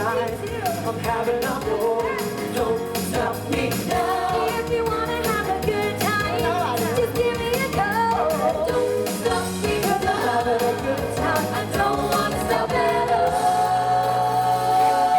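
Live pop music with several voices singing over a backing track, moving into a long held note near the end.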